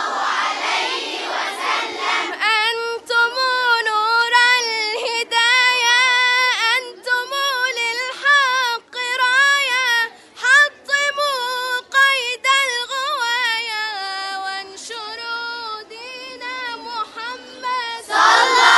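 A crowd of voices fills the first two seconds, then a single high child's voice recites the Quran in a melodic style, with long, wavering, ornamented held notes and short breaks between phrases. The crowd breaks in again near the end.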